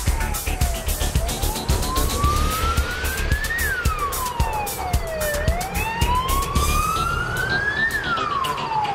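Wailing siren, its pitch rising slowly for about two and a half seconds and then falling, over and over, with a second fainter siren joining partway through. Beneath it is a steady low rumble with scattered clicks.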